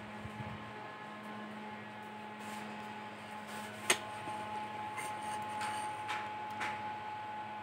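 Low, steady electrical hum with a thin higher tone over it. A single sharp click about four seconds in, then a few faint scuffs.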